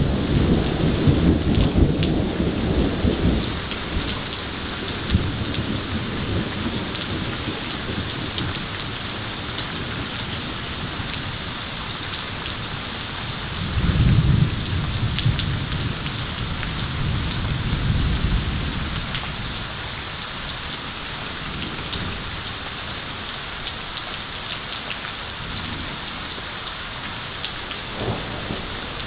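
Heavy thunderstorm: rain falling steadily, with thunder rumbling through the first few seconds, a louder peal breaking suddenly about halfway through, and a softer rumble a few seconds after it.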